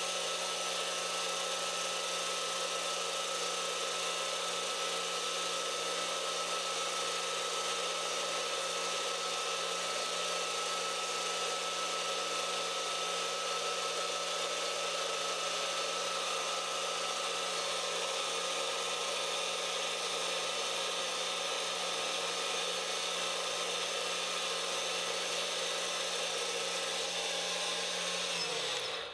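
MX-180D 7x12 mini metal lathe running at steady speed with a constant whine while a knurling tool rolls a knurl onto a small steel handle. Near the end the motor is switched off and the sound falls away quickly.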